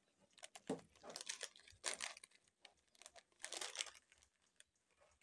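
Plastic snack packet crinkling in several bursts as it is handled and opened.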